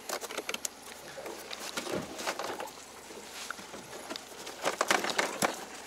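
Irregular clicks and knocks of handling aboard a small fishing boat, with a cluster of louder knocks near the end.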